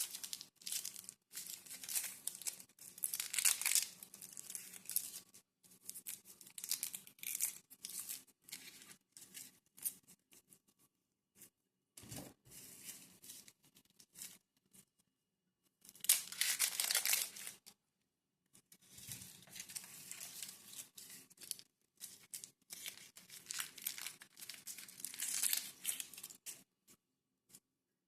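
Plastic bags and food packaging crinkling and rustling as they are handled, in irregular bursts with short pauses; the loudest bursts come about 3 seconds and 17 seconds in.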